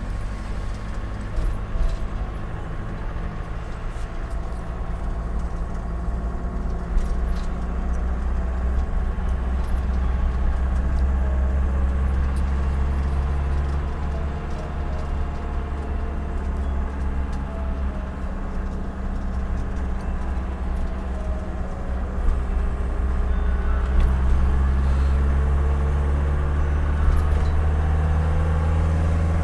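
Van engine and road noise heard from inside the cab while driving, a steady low rumble whose engine note shifts a few times as speed changes.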